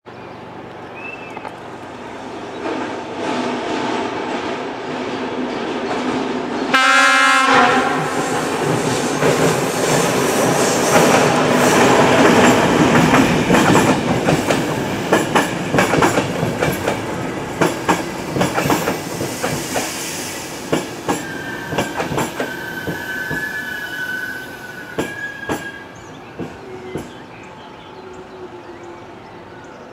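A diesel-hauled passenger train passing. A short horn blast comes about seven seconds in, then the wheels clatter over the rail joints, growing loud and then fading. High wheel squeal is heard on the curve in the later part.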